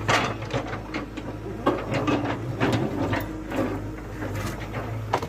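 JCB 3DX backhoe loader's diesel engine running steadily, with irregular clattering knocks of rock against the steel bucket as it clears landslide debris.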